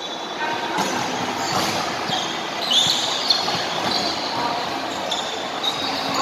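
Indoor basketball game: crowd chatter echoing in a large hall, with short high sneaker squeaks on the court a little before the middle and a single sharp knock just after.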